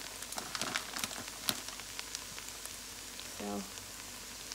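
Washed rice and chopped onion frying in oil in a pot: a soft steady sizzle with scattered light crackles.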